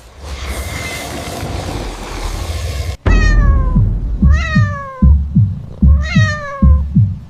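Cat meowing: three long, falling calls over music with deep, repeated bass thumps, which come in suddenly about three seconds in. Before that there is a rushing, hissy noise.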